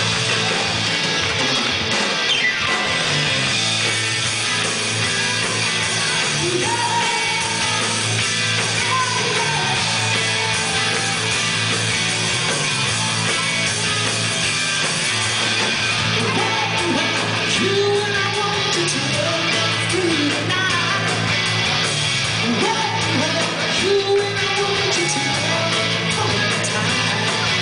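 Live rock band playing electric guitars, bass and drums at full volume, with a singer's vocal line coming in about seven seconds in.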